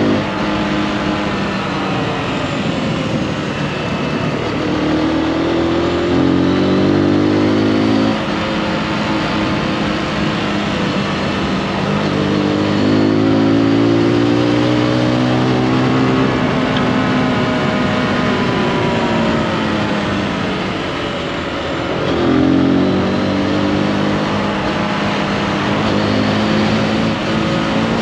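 Zontes G155 motorcycle's single-cylinder engine under way, the revs climbing and falling again and again as the rider accelerates, shifts and eases off through bends. The pitch drops suddenly about eight seconds in, and after a dip it jumps back up about twenty-two seconds in. Wind and road noise run underneath.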